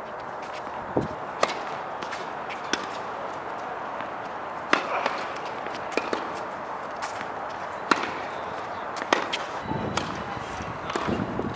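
Tennis balls struck by rackets and bouncing on the court: sharp pops every second or two at an irregular pace, over a steady background hiss.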